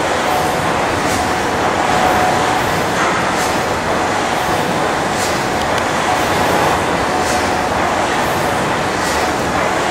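1907 J & E Wood triple-expansion four-cylinder mill steam engine running: a steady mechanical rumble, with a brief hiss repeating about every two seconds.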